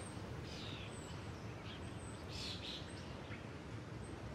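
Faint outdoor ambience: scattered short bird chirps over a steady low background rumble.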